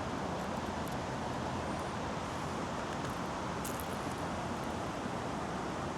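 Steady wind noise outdoors, with one short sharp click a little past the middle.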